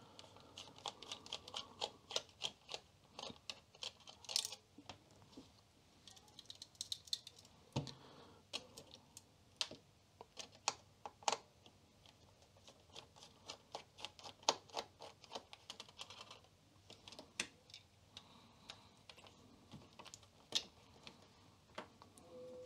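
Small screwdriver working the screws on the sheet-metal chassis of a 3-inch floppy drive to take its front cover off: a run of scattered, irregular light clicks and ticks of metal on metal, with short pauses between.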